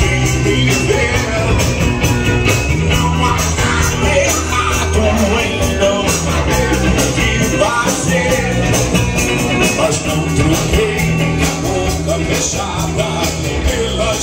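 A live rock band playing a song: electric guitar and bass guitar over drums that keep a steady beat.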